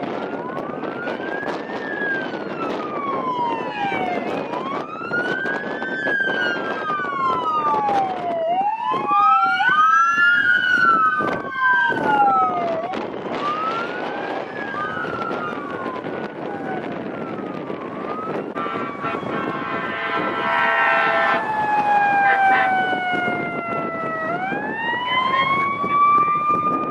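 Emergency sirens on responding fire apparatus wailing, several at once, their pitches rising and falling and overlapping, over passing traffic. A horn blast lasts about two seconds, about two-thirds of the way through, and near the end a siren winds up and holds high.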